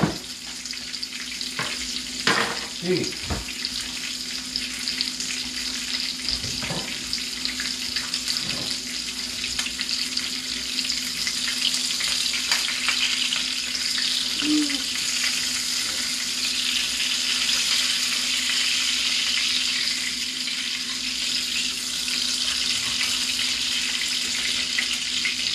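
Coconut-crusted fish fillets frying in shallow oil in a nonstick pan, a steady sizzle that grows louder after about ten seconds as a fillet is turned with a spatula. A few utensil knocks in the first few seconds and a steady low hum underneath.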